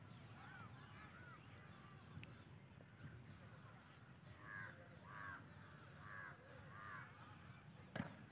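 Faint bird calls over a quiet outdoor background: a few weak calls near the start, then a run of four louder calls about halfway through, each rising and falling in pitch. A sharp click comes near the end.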